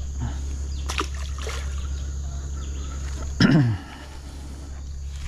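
A small river fish dropped back into the water with a light splash about a second in, over a steady low rumble. Just past halfway a short, louder vocal sound slides down in pitch.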